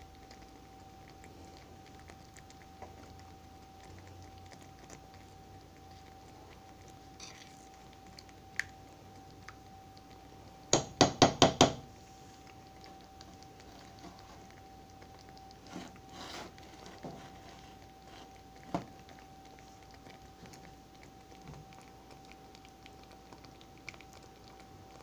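A utensil stirring sour cream into chicken and soup in a skillet, with scattered light clicks against the pan. About eleven seconds in come five or six quick, loud taps of the utensil on the pan. A faint steady hum lies underneath.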